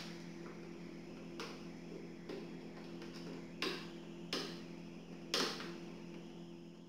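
A handful of sharp clicks and taps, a second or so apart, as a wooden-legged, wire-framed chair base is fitted and fastened onto a plastic seat shell, over a steady low hum.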